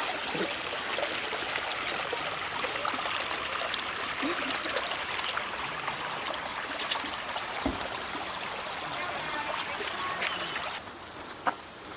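Creek water running over rocks: a steady rush with small splashes and ticks, which cuts off abruptly near the end to a quieter hiss.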